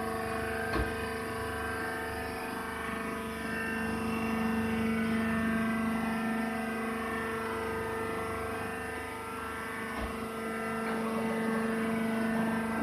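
Hydraulic baler's power unit, an electric motor driving the hydraulic pump, running with a steady hum, broken by a faint knock about a second in and another later on.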